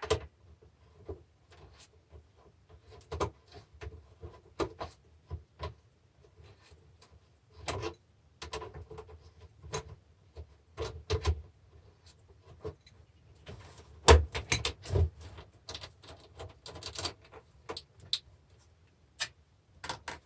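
Irregular clicks, knocks and scrapes of tools and metal and plastic parts being handled while a car battery charger is taken apart for scrap, with a few louder knocks about two thirds of the way in.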